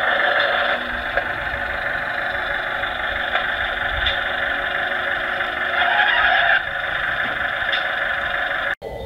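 LGB G-scale garden-railway model railcar running slowly along the track: a steady whirr of its motor, gearing and wheels on the rails.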